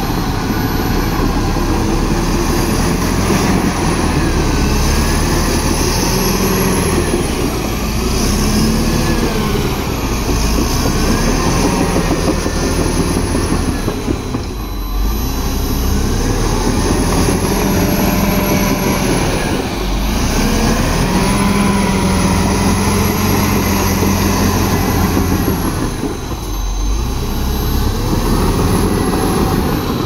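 Bulldozer's diesel engine working, its pitch rising and falling every few seconds as it loads and eases off, with deeper drops about halfway and near the end.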